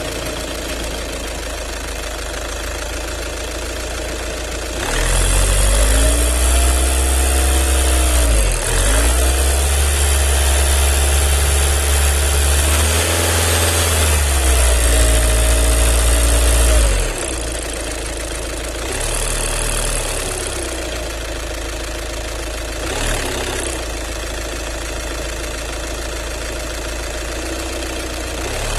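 VW Passat CC 2.0 TDI common-rail diesel engine idling just after a start. It is revved up and held several times between about five and seventeen seconds in, then settles back to a steady idle with a short blip near the end. It is run to show a strange noise that the owner puts down to the fuel pump.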